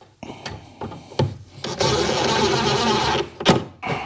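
Cordless driver spinning a screw into the wooden cabinet frame for about a second and a half, after a few light knocks from handling, with a sharp click near the end.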